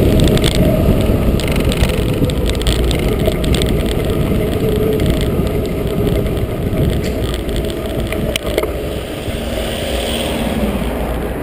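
Wind rushing over an action camera's microphone and mountain bike tyres rolling on tarmac make a dense, low rumble that eases off gradually as the bike slows. A few sharp clicks come about eight seconds in.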